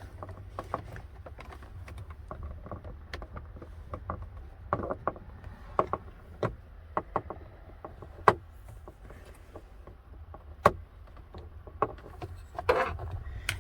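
A flat-tip screwdriver and fingers working at plastic wiring plugs on a steering-column multi-function switch, prying them loose: scattered small clicks and scrapes, with two sharper clicks, one past the middle and one near the end, over a steady low hum.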